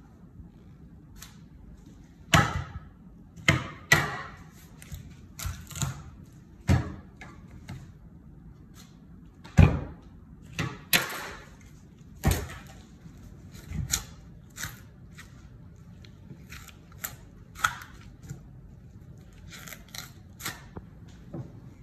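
Raw lamb being handled and cut on a wooden cutting board: irregular thuds and knocks as the meat and a large knife meet the board, the loudest about ten seconds in, with a few longer slicing or scraping sounds between them.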